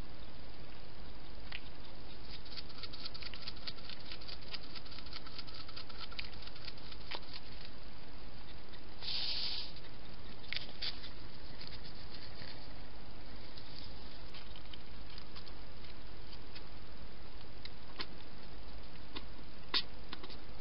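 Wild hedgehog eating, a run of small crunching, smacking clicks over steady camera hiss, with a brief louder rustle about nine seconds in.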